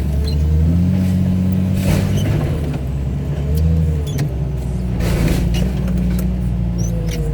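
Heavy diesel machinery engine running, its load rising and falling, with a faint wavering whine and several sharp metal clanks as the front of a Chevy Suburban is torn off.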